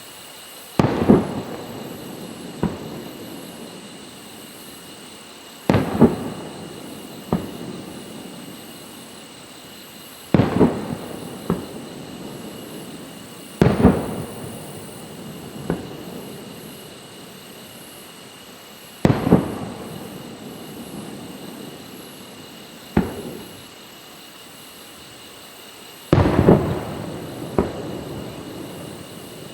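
Aerial firework shells bursting one after another: a loud boom every few seconds, each followed by a smaller crack and a long echoing tail.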